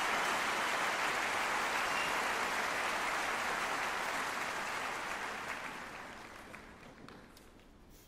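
Audience applause, steady at first, then fading out over the last few seconds with a few scattered claps near the end.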